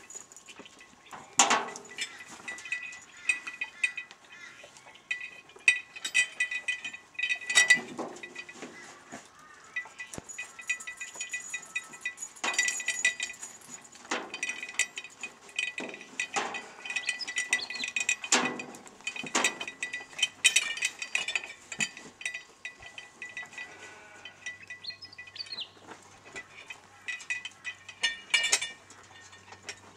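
Metal fittings of a draught horse's cart harness (chains, rings and buckles) clinking and jingling as the harness is handled and put on, with a few sharp knocks.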